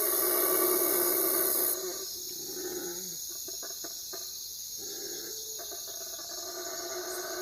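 Night-time outdoor ambience of insects trilling steadily. A loud high hiss cuts out about two seconds in, leaving a quieter steady chorus.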